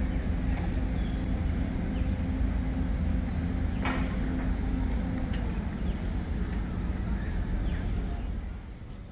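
Steady low hum of an idling vehicle engine on the street. The engine tone drops away about halfway through, there is a sharp click about four seconds in, and the whole sound gets quieter near the end.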